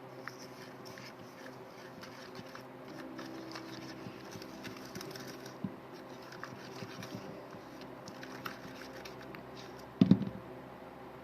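A spoon stirring a sticky mix of glue, toothpaste and sugar in a bowl: soft scraping and small clicks throughout, with one loud knock near the end.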